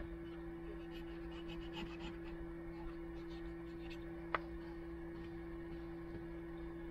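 Kitchen knife slicing a tomato by hand, with faint scraping cuts and one sharp tap of the blade about four seconds in, over a steady low hum.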